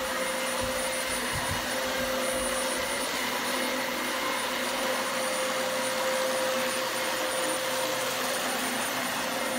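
Upright vacuum cleaner running steadily while being pushed back and forth over carpet: an even motor drone with a steady whine above the airflow noise.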